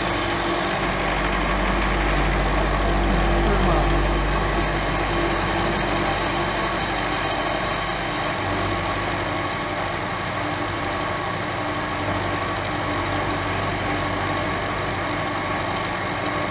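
Lagun vertical milling machine running steadily, its 3/8-inch carbide end mill turning at about 600 rpm and side-cutting a plate under the servo power feed. The deep low hum drops away about halfway through, leaving a slightly higher steady hum.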